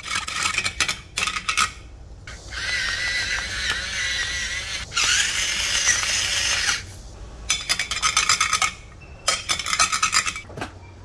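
Metal spoon beating eggs in a bowl, fast clinking against the bowl's sides, stopping about two seconds in. A hand-twisted pepper mill then grinds for about four seconds, and the spoon's fast clinking returns near the end in two short spells.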